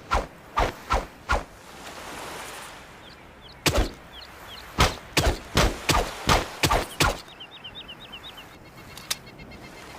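Machete striking in a series of sharp chops: four in the first second and a half, then a quicker run of about nine a few seconds in, and one more near the end. Birds chirp briefly between the strikes.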